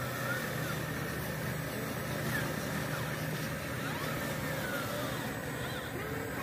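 Remote-control scale excavator's motor running with a steady hum while it digs and lifts a bucket of soil.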